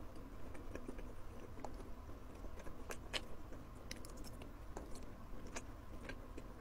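Close-miked eating sounds: a person biting and chewing food, with scattered short mouth clicks and smacks, the loudest about three seconds in.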